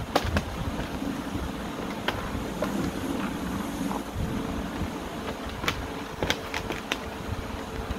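American Bully puppies scuffling in a hard plastic kiddie pool, their claws and paws clicking and knocking on the plastic, with a quick run of clicks near the end, over a steady low rumble.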